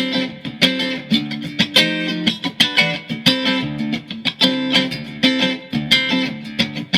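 Mexican-made Fender Stratocaster electric guitar in drop tuning, played as a rhythmic riff of picked chords and notes with sharp attacks several times a second.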